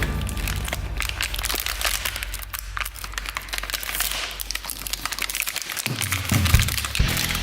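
Dense, irregular crackling and clicking, typical of plastic toys or their packaging being handled. Background music comes back about six seconds in.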